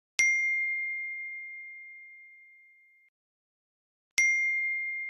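A bell-like ding sounding twice, about four seconds apart; each is a clear high tone that fades away slowly, and the second is cut off before it dies out.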